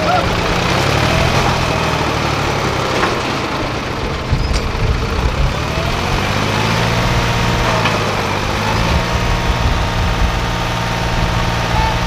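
John Deere tractor's diesel engine working hard under load, its pitch rising and falling several times as it pulls a trailer loaded with a road roller through soft sand, the wheels dug in.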